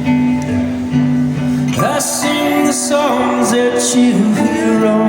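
Live band playing an instrumental passage: sustained chords with strummed acoustic guitar, and sliding notes that rise about two seconds in and fall back a second or two later.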